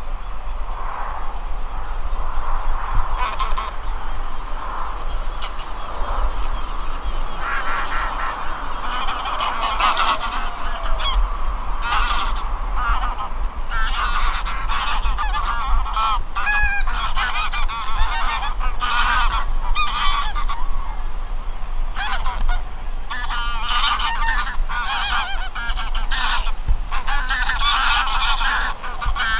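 Flocks of wild geese honking in flight overhead, many calls overlapping into a constant clamour that grows thicker about a quarter of the way in.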